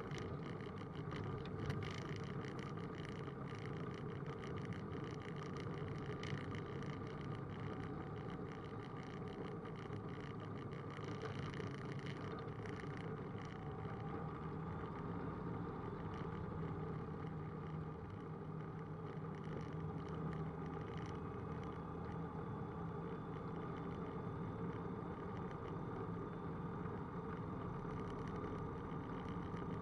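Roland Aircraft Z602 ultralight's propeller engine running steadily at taxi power, heard from inside the cockpit, with light clicks and rattles over the first half.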